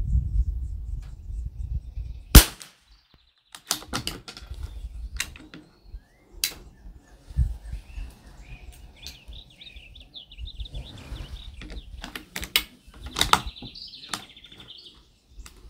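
A single .22 LR shot from an Anschutz 1761 bolt-action rifle about two and a half seconds in, the loudest sound. Scattered clicks and knocks follow from handling the rifle, with birds chirping.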